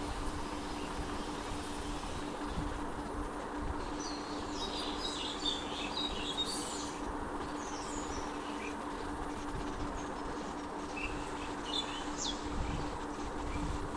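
Small birds chirping and twittering, in a cluster of calls about four to seven seconds in and a few more around eleven to thirteen seconds, over a steady background rumble with a constant low hum.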